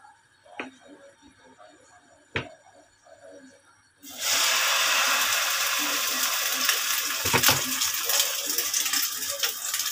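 A couple of light clicks, then about four seconds in a ladleful of egg and sardine batter hits hot cooking oil in a frying pan and starts sizzling loudly, the sizzle carrying on steadily. A few low knocks about three seconds later.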